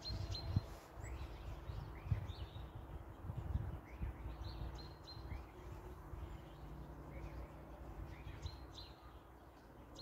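Small songbirds chirping, short high chirps about one to two a second, over a low uneven rumble.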